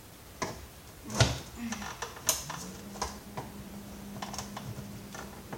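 Plastic clicks and knocks from the housing of a Dirt Devil upright vacuum cleaner being handled and pried apart, with two louder knocks a little after one and two seconds in.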